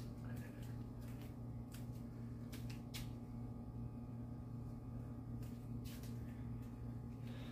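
Indoor room tone: a steady low electrical hum, with faint scattered clicks and light rustles.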